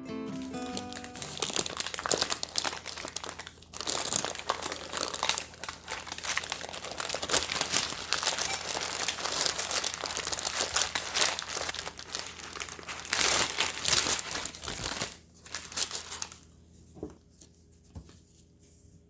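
Plastic crinkling and rustling, handled in irregular bursts, then dropping to a few faint rustles a couple of seconds before the end.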